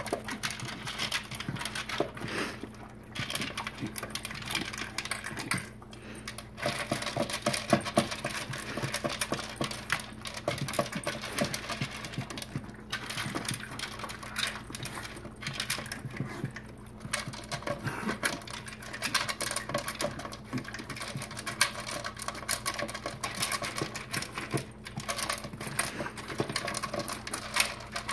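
Two dogs eating dry kibble from plastic slow-feeder bowls: a fast, continuous clatter of kibble rattling against the bowls' ridges and crunching, with a few short pauses.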